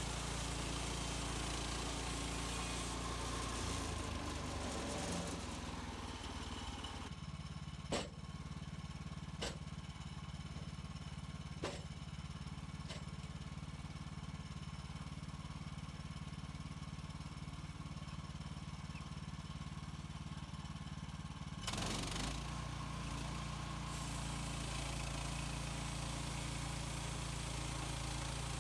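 HM130 Max portable sawmill's gas engine running steadily. The higher rushing noise over it drops away for about fifteen seconds in the middle, when four sharp knocks sound.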